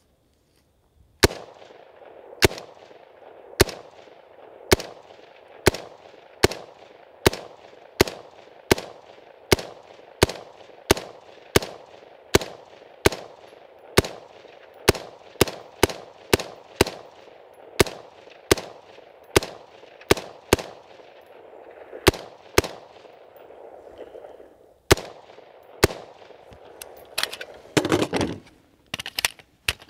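Shots from the BCM AR-15 in 5.56 mm, a rifle that has never been cleaned or oiled, fired semi-automatically at a steady pace of a little more than one a second. Near the end there is a brief pause, then a few quicker shots.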